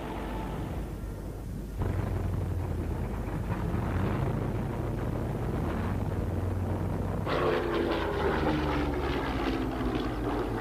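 Piston-engined propeller aircraft running, a steady engine hum. The sound changes abruptly about two seconds in, and again about seven seconds in, when a higher engine note comes in and falls slowly in pitch as the aircraft passes.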